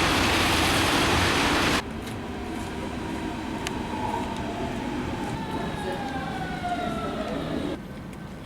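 A loud, even rushing hiss cuts off sharply about two seconds in. It gives way to street noise with a passing siren whose pitch slowly falls, and that cuts off near the end.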